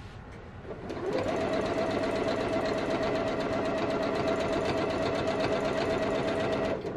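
Janome Memory Craft 6700P sewing machine free-motion quilting through the quilt layers: the motor winds up about a second in, runs at a steady high speed with rapid, even needle strokes, and stops just before the end.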